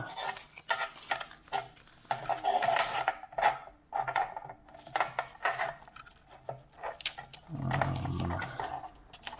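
Small objects being handled on a work surface: a run of irregular clicks, taps and light scrapes, with a short low murmur of about a second near the end.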